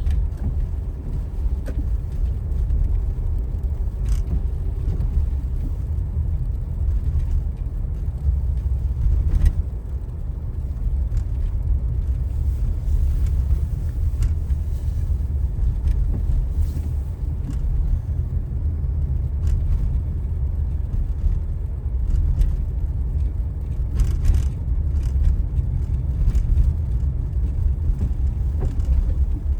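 Steady low rumble of a car's engine and tyres on a snow-covered road, heard from inside the cabin while driving, with a few faint clicks.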